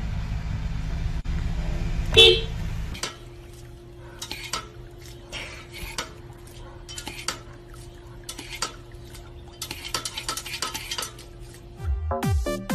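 Low steady rumble with one loud high squeak about two seconds in. Then irregular clicks and clacks of a dog pressing the step-on pedal of a dog water fountain, over a faint steady hum. Electronic dance music with a beat comes in near the end.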